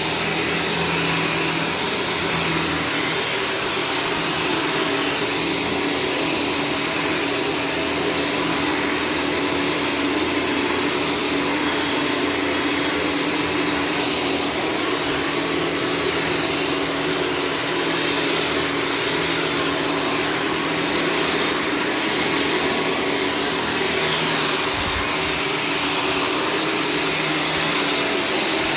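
Shark Stratos vacuum cleaner running steadily: a constant motor hum over a broad rush of air.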